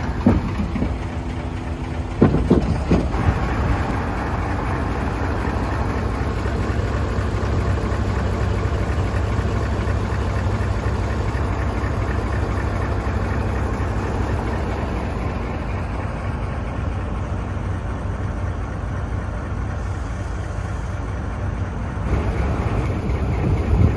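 Mitsubishi Fuso 8DC11 V8 diesel truck engine running steadily, with a few short clunks in the first few seconds and again near the end.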